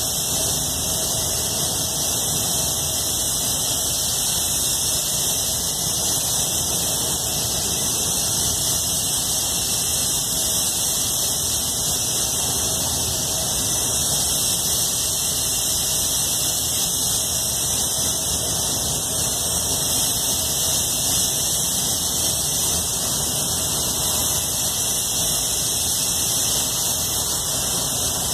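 Iwata Supernova spray gun hissing steadily as it sprays clear coat, with a low rumble beneath.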